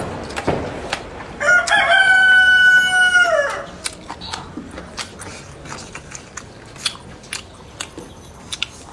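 A rooster crows once, a single call of about two seconds that rises at the start, holds steady and falls away at the end. Scattered light clicks follow.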